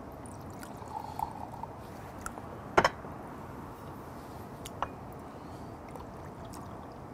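Liquor poured from glass bottles into a drinking glass: soju first, then beer, mixed into somaek. A sharp clink, the loudest sound, comes a little under three seconds in, with a few fainter clicks around it.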